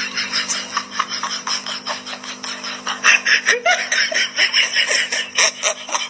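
A person laughing in quick, breathy bursts, louder from about halfway through, over a steady low hum.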